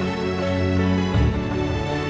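Background music: soft, slow instrumental score with sustained notes over a bass line.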